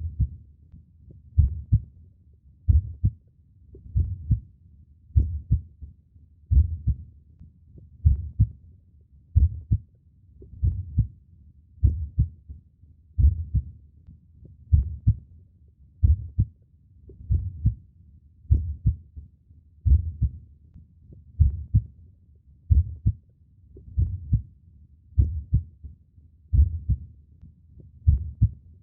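Human heartbeat, slow and steady: a low double thump (lub-dub) about every second and a third, roughly 45 beats a minute.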